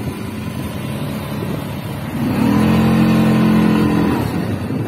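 ATV (quad bike) engine running while riding. About two seconds in, the throttle opens and the engine note rises and holds for about two seconds, then drops back.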